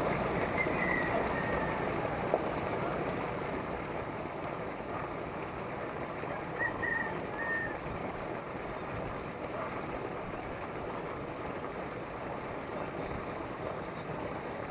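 Steady rush of water running into the river. A small bird chirps a few short high notes about a second in and again around the middle, and there is one sharp click at about two seconds.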